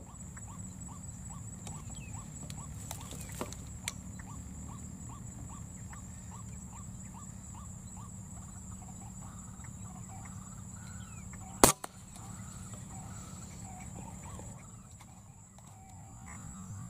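Steady wind rumbling on the microphone, with a faint, regular chirping of about three calls a second through the first ten seconds or so. One sharp crack about twelve seconds in is the loudest sound.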